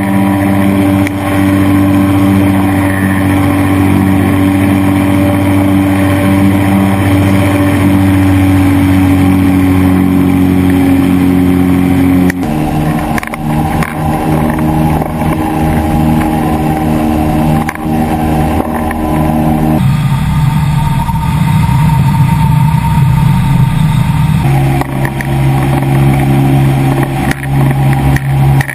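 Ultralight trike's engine and propeller droning steadily in flight. The engine note drops abruptly about a third of the way in, then shifts twice more near the end.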